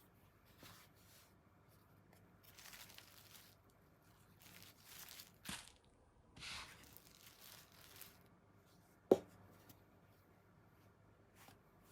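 Intermittent soft rustling and crinkling of kitchen handling during food preparation, in several brief bursts, with one sharp click about nine seconds in.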